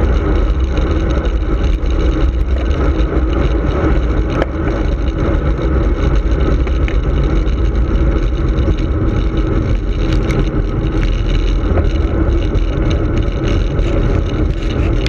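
Steady low wind rumble buffeting the microphone of a handlebar-mounted camera on a fast bicycle descent, with a few faint clicks.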